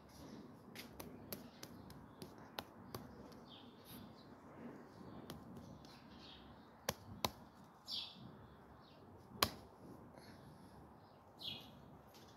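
Birds chirping in short calls every few seconds over a faint steady background, with scattered sharp clicks; the loudest clicks are a pair about seven seconds in and a single one about nine and a half seconds in.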